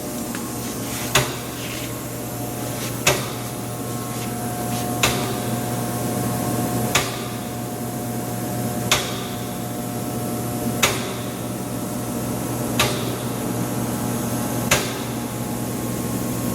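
Moore No. 3 jig grinder running with a steady hum, with a sharp click about every two seconds.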